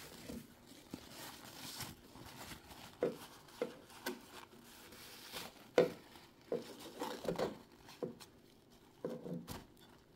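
Paper towel being rubbed and scrubbed over the sewing machine's body to wipe off grime, soft crinkling with a few light knocks and taps now and then.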